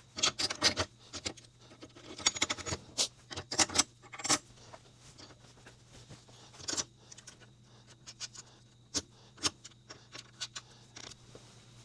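Small metal parts clinking and rattling as a suspension bolt and nylon lock nut are handled and fitted by hand: quick clusters of clicks in the first few seconds, then scattered single taps.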